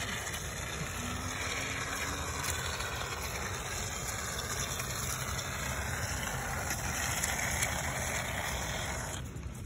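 Can of Great Stuff Window & Door foam hissing steadily as foam is pushed out through its straw applicator into a gap, stopping near the end.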